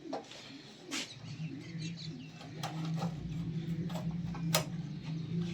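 A steady low machine hum starts about a second in and deepens a little later, with several sharp knocks over it.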